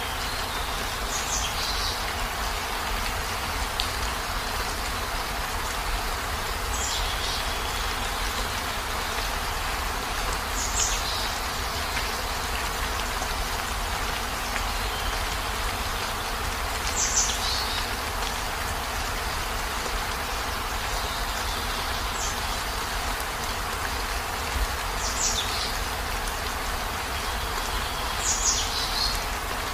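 Steady heavy rain. About seven times, a short high call falls in pitch, a few seconds apart.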